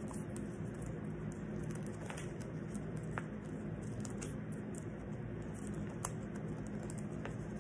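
A steady low hum with a few faint clicks and rustles from hands working sticky tape onto a poster.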